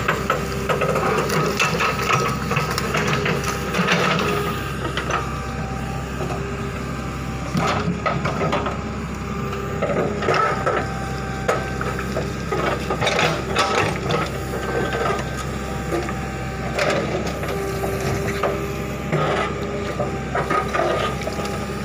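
JCB 3DX backhoe loader at work: its diesel engine running steadily under many irregular knocks, clanks and scrapes from the digging bucket and arm.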